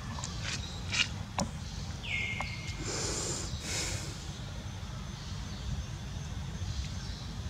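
Outdoor ambience with a steady low rumble, a few sharp clicks in the first second and a half, a short squeak about two seconds in that falls and then holds, and a brief rustling hiss about three seconds in.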